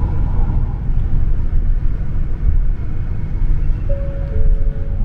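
Steady low rumble of a highway bus heard from inside the passenger cabin as it drives. About four seconds in, background music comes in with a few held notes.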